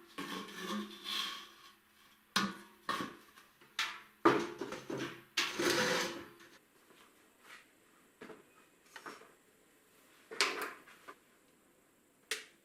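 Irregular knocks, clatters and short scraping sounds of hard objects being handled and set down. The longest scrape comes around the middle, and the sounds thin out to a few single knocks toward the end.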